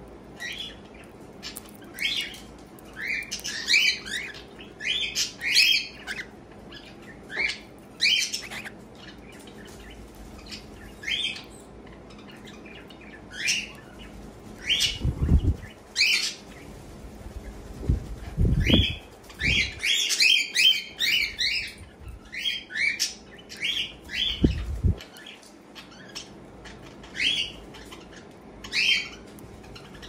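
Cockatiel cracking and husking seeds from its bowl: a run of short, sharp crunchy clicks at irregular intervals. A few dull thumps come in the middle.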